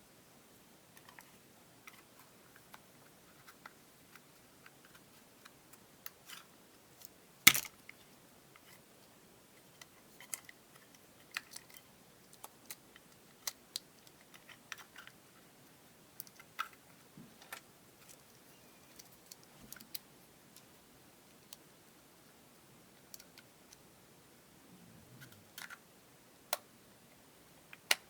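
Scattered small clicks and taps from handling small hard objects, such as plastic earbud parts on a desk, with one sharp loud click about seven and a half seconds in.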